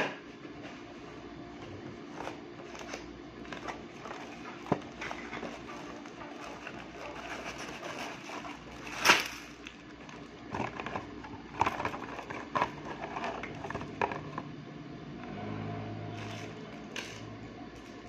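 Hands handling a cardboard box and plastic parts packaging on a desk: scattered clicks, knocks and rustles at uneven intervals, the loudest knock about nine seconds in and a quick run of them a little later, over a faint steady hum.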